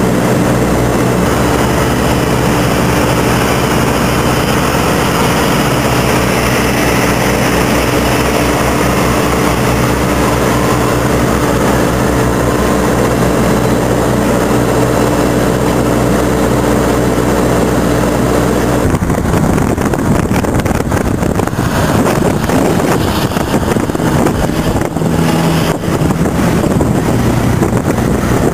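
Road train's diesel engine running with a steady drone as the truck pulls past. About two-thirds of the way in the drone gives way to rough, gusty rumble as the long line of trailers rolls by close to the microphone.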